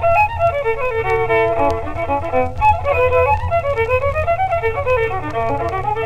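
Background music: a quick instrumental fiddle tune of fast running notes, with no singing.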